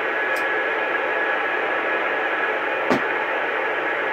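CB radio receiver hissing with static on a quiet channel, a thin steady whistle running through the hiss. Two short clicks, one just under half a second in and a sharper one about three seconds in.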